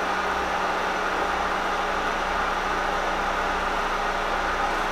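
Horizontal milling machine running steadily at idle, its arbor turning a roughing slab-mill cutter that is not yet cutting, as the cutter is touched off against the work with a slip of paper. An even motor-and-spindle hum with a constant low tone.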